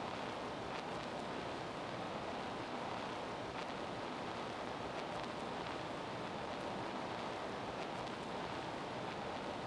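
Steady, even hiss-like background noise, with a few faint ticks.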